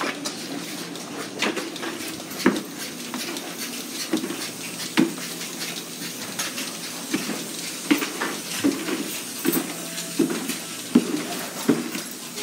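Irregular metallic clanks and knocks from a dairy barn's tie stalls, cows' neck chains striking the steel stall pipes as the cows move, over the steady hum of barn ventilation fans.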